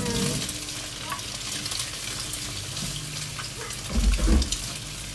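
Chopped meat and vegetables tipped into a hot oiled pan with eggs, sizzling steadily as a wooden spoon stirs them. A short cluster of louder low knocks and scrapes from the spoon against the pan about four seconds in.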